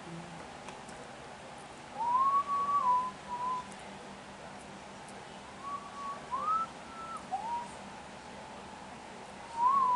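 A person whistling a tune in three short melodic phrases with pauses between them, the pitch sliding up and stepping between notes.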